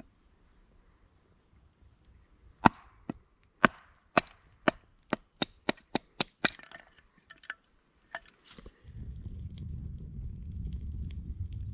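A short log used as a wooden baton knocks down onto a knife set in an upright stick on a stump, splitting kindling: about a dozen sharp knocks that speed up from about one a second to about three a second, then a few weaker taps. Near the end they give way to a steady low rumble.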